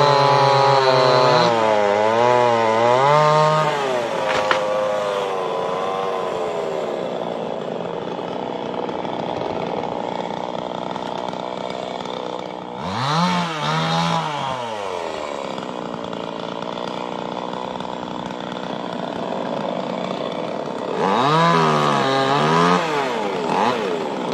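Chainsaw engine revved up and down several times, then running at a steadier speed, with another rev about halfway through and a fresh burst of revving near the end.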